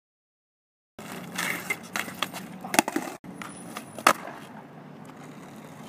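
Silent for about a second, then a skateboard on concrete: wheels rolling and sharp wooden clacks of the deck. The two loudest clacks come about three and four seconds in, the last as the board lands under the skater.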